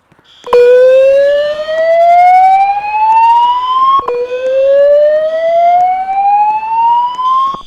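Fire alarm voice-evacuation speaker sounding the slow-whoop alert tone: two loud rising sweeps, each climbing for about three and a half seconds, then cutting off and starting again. A faint high-pitched beeping from another alarm sounder runs underneath.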